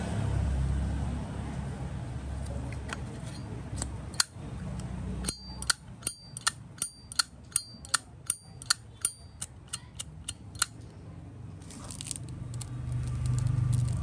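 Zippo lighter lid flicked open and snapped shut again and again: a quick run of sharp metallic clicks, about three a second, several followed by a brief high ping from the lid and hinge. Low traffic rumble runs underneath at the start and end.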